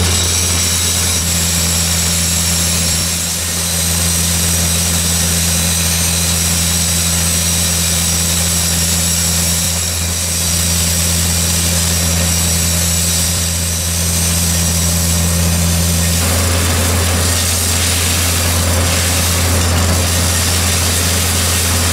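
Wieland VacTrailer S4 industrial vacuum unit, its 44 kW diesel engine and vacuum blower running steadily at working speed: a deep hum with a steady high whine, over a rushing of air and gravel being sucked up through a 100 mm suction hose. About sixteen seconds in, a lower-middle tone drops out and the rushing gets rougher.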